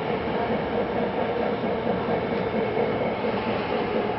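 Tokyo Metro 10000 series subway train moving along an underground station platform, heard from inside the front car: steady running noise with a steady hum.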